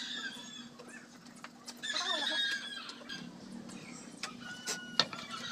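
Chickens clucking and calling, with a few sharp knocks, the loudest about five seconds in.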